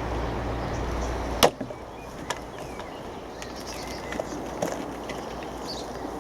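A single sharp knock about one and a half seconds in, followed by a few faint clicks.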